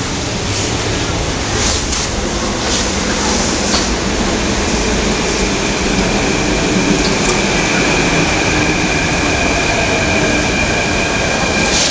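Metro train running into the station, a rumble that grows louder, with a steady high-pitched whine from the train coming in about four seconds in. A few sharp clicks sound in the first few seconds.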